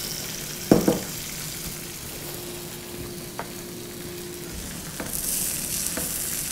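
Egg whites and diced bell peppers sizzling on an electric griddle preheated to 350 degrees with a touch of cooking spray. There is a short knock about a second in, and the sizzle grows louder near the end.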